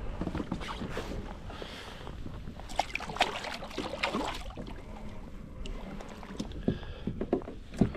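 Scattered light knocks and clicks of handling on a kayak, over a low steady rumble of wind and water.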